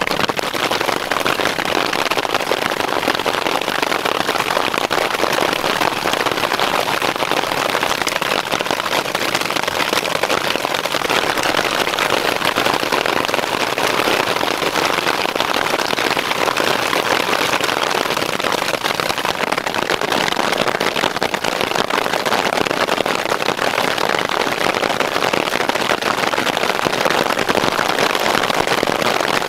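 Hail and heavy rain falling on a camping tarp: a loud, steady, dense patter of countless small impacts.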